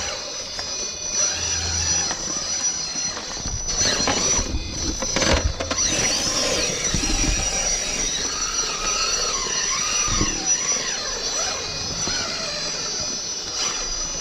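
1:10-scale RC rock crawler's electric motor and gear drive whining, the pitch rising and falling as the throttle is worked. A couple of sharp knocks come about four and five seconds in, as the truck hits rock.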